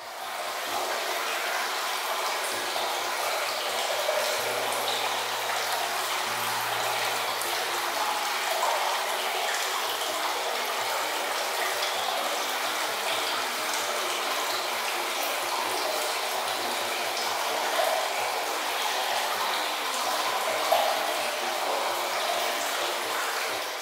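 Hot spring water pouring steadily from a granite spout into a stone bath, a continuous splashing hiss.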